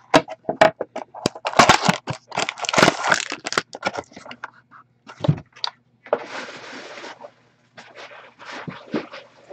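Plastic shrink wrap crinkling and a sealed cardboard trading-card box being pulled open by hand, with a dense run of sharp crackles and snaps over the first few seconds, then lighter rustling and handling.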